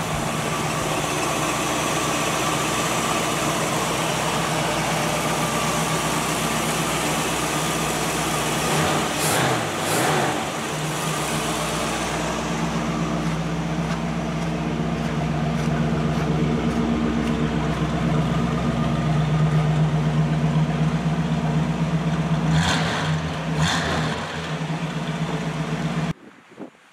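1946 Ford Deluxe's 289 V8 with a Holley four-barrel carburetor, running at a steady idle, blipped briefly around ten seconds in and twice again near the end. The engine sound cuts off suddenly just before the end.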